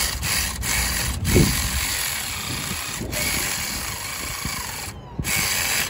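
Power ratchet running in the intake manifold bolts on a 3.6-litre V6: a steady rushing noise, broken by several short pauses, that cuts off sharply near the end.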